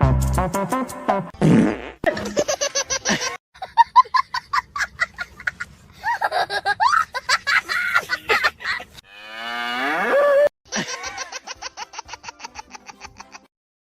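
A string of fart sounds cut one after another: long, buzzing rattles with a fast pulse, one of them rising in pitch, with abrupt breaks between them.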